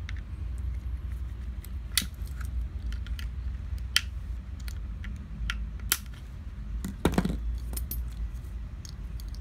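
Glock 17 pistol parts clicking and clinking as they are handled and fitted together by hand: a few separate sharp clicks, then a heavier clatter about seven seconds in, over a steady low hum.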